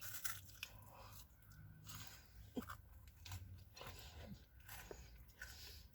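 A person chewing a peanut butter bar with peanuts in it: faint, irregular crunches and mouth noises.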